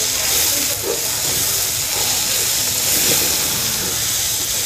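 Chopped collard greens sizzling as they sauté with bacon and fish sausage in an aluminium pot while being stirred: a steady frying hiss.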